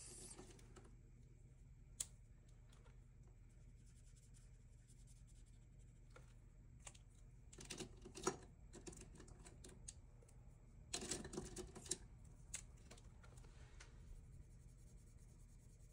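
Quiet desk handling: one sharp click about two seconds in, then a few short clusters of quick scratchy strokes, a marker colouring in squares on a paper savings-challenge card.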